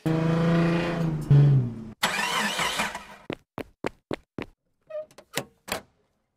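Intro sound effects: a car engine starting and running for about two seconds, then a burst of revving, then a string of about nine short, sharp clicks spaced irregularly.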